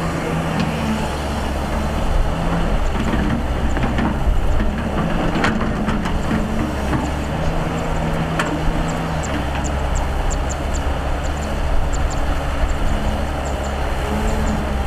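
Excavator's diesel engine running steadily under load, with a few short knocks from the digging.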